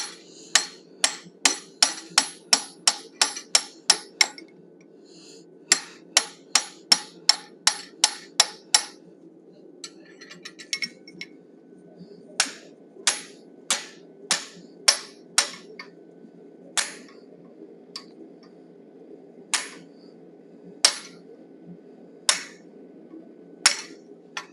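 Hand hammer striking a 1/2-inch top fuller held against red-hot steel in a vise, forming the brow line of a forged bison head. Two runs of quick ringing blows, about four a second, then slower strikes, and near the end single blows more than a second apart. A steady low hum runs underneath.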